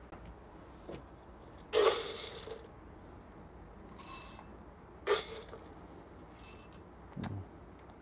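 Whole coffee beans rattling in short bursts as they are scooped from a stainless steel cup and poured into a dosing cup on a scale, weighed out for an espresso dose. The loudest rattle comes about two seconds in, with smaller ones around four, five, six and seven seconds.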